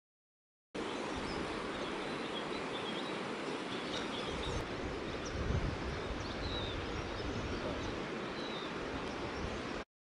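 Outdoor ambience: a steady rushing background noise with faint, scattered bird chirps. It starts abruptly about a second in and cuts off just before the end.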